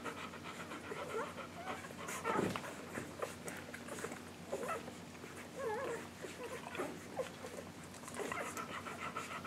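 English Golden Retriever mother panting rhythmically while her week-old puppies nurse. The panting gives way in the middle to short, wavering squeaks and whimpers from the nursing puppies, the loudest about two and a half seconds in, and picks up again near the end.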